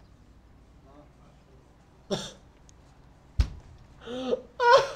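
A man laughing in short stifled bursts, with a single sharp thump a little past the middle.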